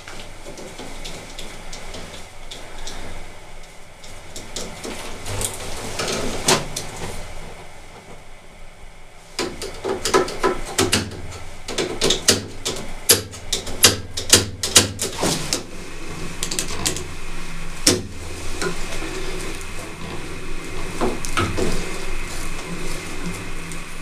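Hands and a screwdriver working on a well pump pressure switch as its wires are taken off: scattered metal clicks, taps and small knocks, coming thick and fast for a few seconds near the middle.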